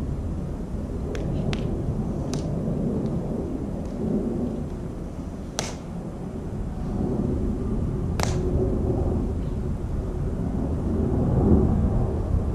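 Wind buffeting the microphone as a steady low rumble, with a handful of sharp clicks on top, the two loudest about five and a half and eight seconds in.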